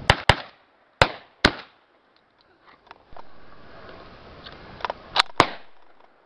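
Hunting shotgun fired at wild boar in quick succession: two sharp shots right at the start, two more about a second later, then a fainter shot and a final loud pair near the end.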